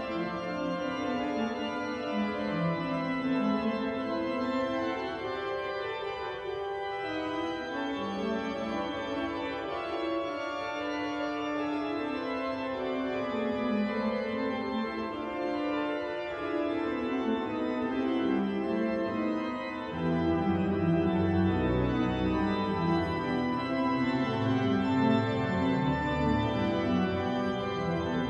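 Pipe organ playing, several melodic lines moving at once over held notes. About twenty seconds in, deep pedal bass notes come in and the sound grows louder.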